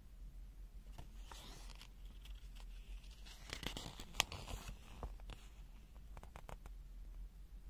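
Handling noise: rustling and crinkling for a few seconds, a sharp click about four seconds in, then a quick run of light clicks.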